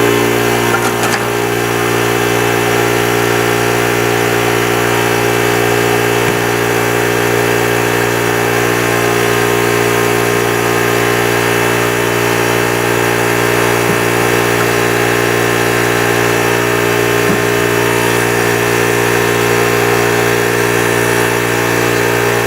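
Pneumatic die grinder with a metal cutoff wheel, running at a steady high speed while cutting into a pressed-on differential carrier bearing to crack it off.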